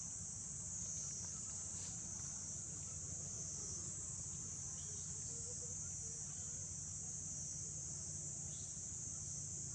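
A chorus of insects droning: a continuous shrill buzz, even throughout, over a low steady hum.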